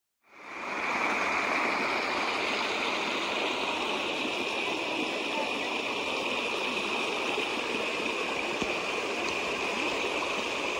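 Shallow creek water flowing and babbling, a steady rushing that fades in within the first second and holds even.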